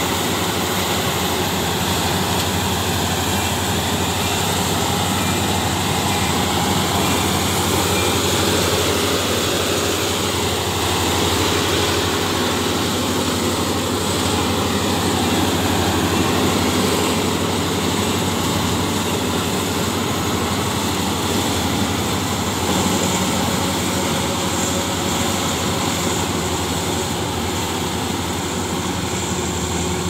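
Ajay tracked rice combine harvester running steadily while cutting and threshing standing rice: an even, unbroken engine and machinery drone.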